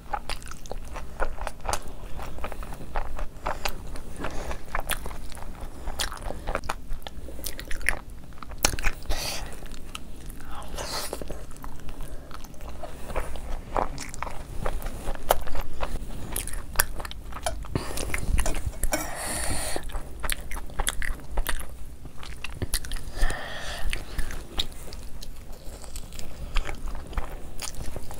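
Close-miked eating of loaded chicken fries by hand: bites, crunching and chewing, with many small sharp mouth clicks throughout.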